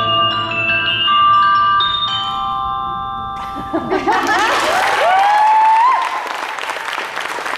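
Music of ringing, bell-like mallet tones holds its last notes and stops a little under four seconds in. Audience applause then breaks out, with loud rising whoops and cheers over it.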